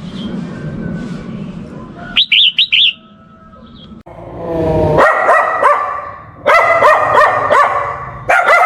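A few quick high bird chirps, then an animal calling over and over in short, pitched cries.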